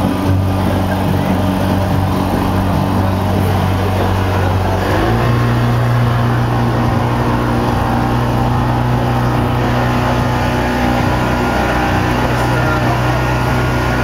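Motorboat engine running steadily under way, with water rushing along the hull. About five seconds in the engine note steps up to a higher pitch as it picks up revs.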